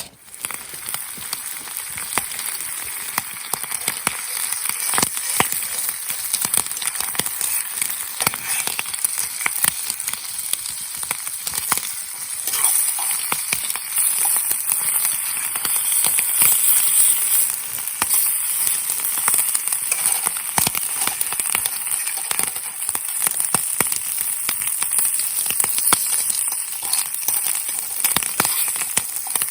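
Food frying in a hot pan: a steady sizzling hiss with many small, irregular pops and spits.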